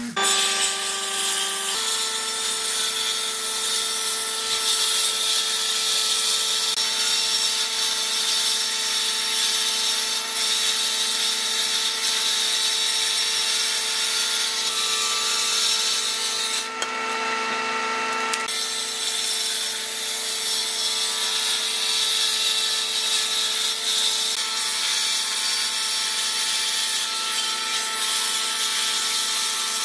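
Woodworking power tools running steadily: an electric sander for the first two seconds or so, then a jointer's cutterhead running with a steady whine over a hiss as a board's edge is fed across it.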